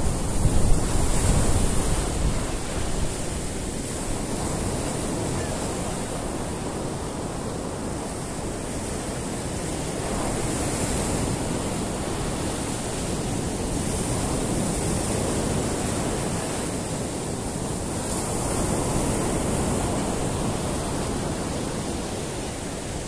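Rough sea surf breaking on a sandy beach: a steady rushing wash that swells and eases every few seconds as waves come in. Wind buffets the microphone in the first couple of seconds.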